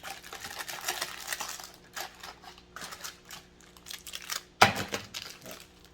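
Rustling and crinkling of sealed plastic packages being handled, with scattered small clicks and one sharp knock a little over two-thirds of the way through as a package is set down.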